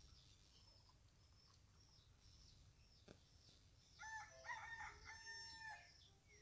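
Small birds chirping faintly, then a rooster crows once about four seconds in, a cock-a-doodle-doo lasting about two seconds.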